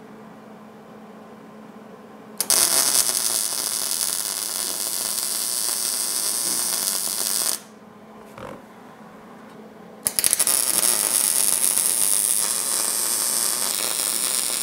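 MIG welder arc crackling as threaded studs are welded onto a steel mounting plate: two runs of about five seconds each, with a pause of about two and a half seconds between them.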